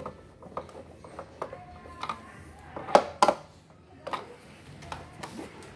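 Clicks and knocks of hands handling a Sunhouse induction cooker's plastic casing during reassembly, with two louder knocks close together about three seconds in.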